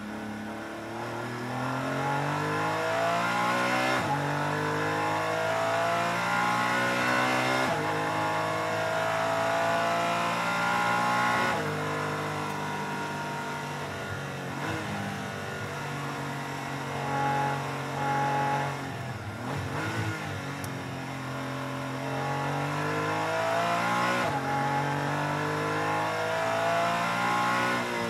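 Porsche 718 GT4 Clubsport's flat-six heard from inside the cockpit at full throttle. The engine note climbs through each gear and drops at quick upshifts about 4, 8 and 12 seconds in, then holds at high revs. About two-thirds of the way through it breaks up under braking and downshifts, then climbs again under power near the end.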